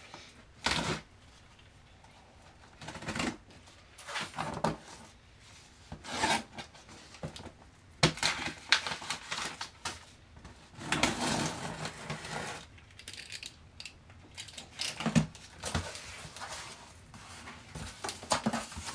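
Cardboard shipping box being opened by hand: irregular scraping, tearing and rustling of tape, plastic and cardboard, with a few sharp knocks as the flaps are handled.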